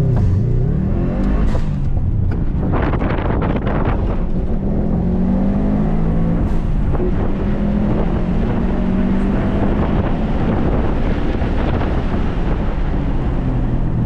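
Subaru WRX STI's turbocharged flat-four engine driven hard on track, heard from inside the cabin: the engine note drops and climbs near the start, then holds a fairly steady, wavering pitch, over loud tyre and road noise.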